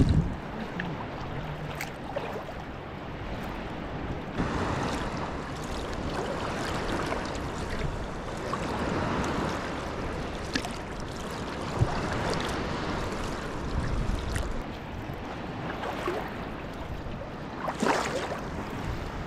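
Sea kayak being paddled on a gently rippled sea: the wooden paddle blades dip and splash, and water sloshes against the hull in soft swells every second or two, with a few small knocks.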